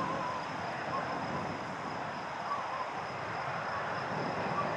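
Gulfstream business jet's Rolls-Royce BR710 turbofans running at taxi power some distance off: a steady rushing hiss with a thin, steady high whine.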